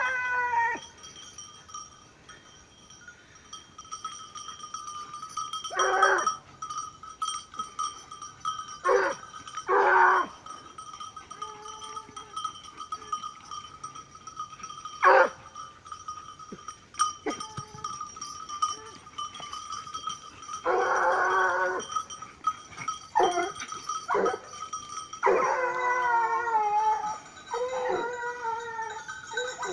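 Repeated wavering animal cries, about ten in all, some short and some over a second long, coming closer together toward the end, over a thin steady high tone.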